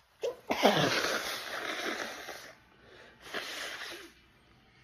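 A woman sneezing in a fit: a quick catch of breath, then a loud sneeze with a falling voiced onset that trails off into about two seconds of noisy breath, and a second, shorter burst about three seconds in. The uploader puts the fit down to allergic rhinitis.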